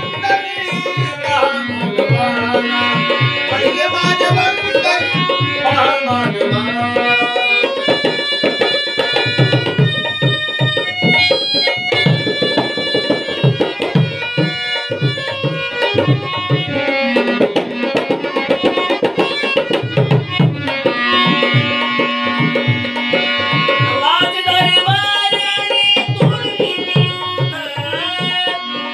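Instrumental interlude of a Marathi devotional song: tabla and drums keep a steady beat under a melody line that bends and slides in pitch.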